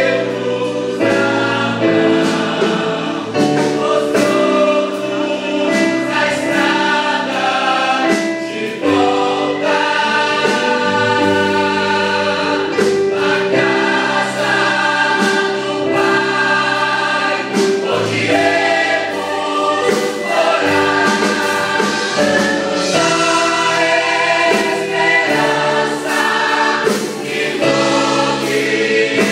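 Youth choir singing a Portuguese-language gospel hymn with musical accompaniment, the voices holding and changing notes without a break.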